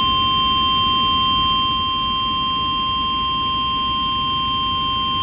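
Emergency Alert System attention signal on an FM radio broadcast: a steady, continuous alert tone held without a break, over a low background rumble.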